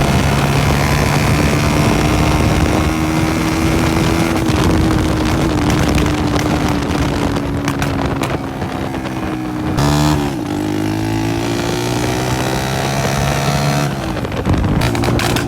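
Honda CG 125's single-cylinder four-stroke engine running loud through a burst silencer under way, with wind on the microphone. The engine note holds fairly steady, drops and climbs again about ten seconds in, and a few short sharp cracks come near the end.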